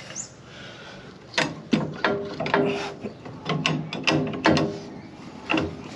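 Hand ratchet wrench clicking in short runs as a nut is worked loose, starting about a second and a half in.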